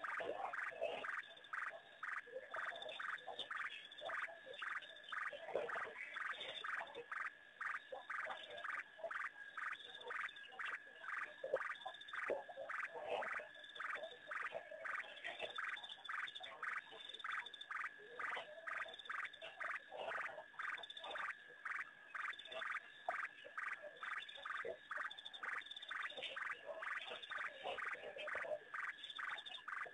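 Frogs calling at a waterhole at night: a short call repeated steadily about twice a second, with other, lower calls mixed in.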